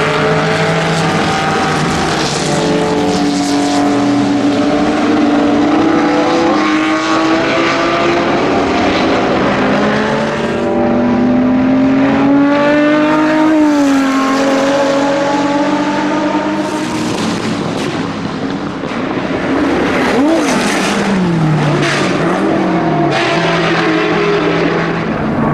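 Porsche 917 flat-twelve racing engine at speed on track, its pitch climbing and falling through the gears. It rises to a peak and drops sharply about halfway through, and dips and recovers quickly a few times near the end.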